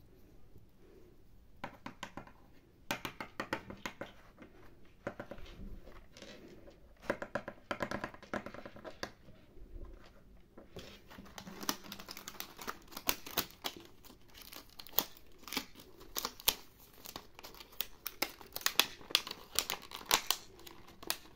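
Clear plastic packaging crinkling and tearing under the hands as a small toy is unwrapped. The crackling comes in scattered bursts at first and turns dense and continuous after about eleven seconds.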